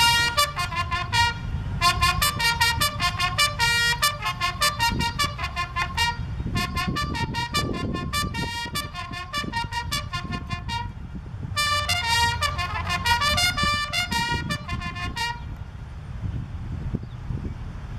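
Military bugle sounding a ceremonial call: clear held and repeated notes in several phrases with short pauses, which stop about three seconds before the end. A low steady background rumble runs underneath.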